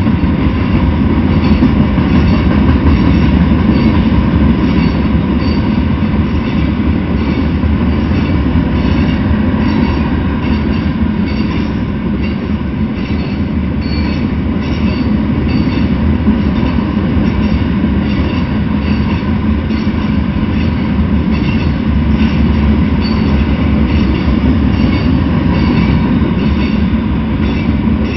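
Freight train of loaded open-top hopper cars rolling past at close range: a steady, loud rumble of steel wheels on rails, with faint clicks repeating about twice a second.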